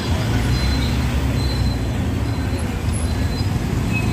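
Dense road traffic at close range: engines of a passing small goods truck and of motorbikes, heard as a steady low rumble with road noise and no sharp events.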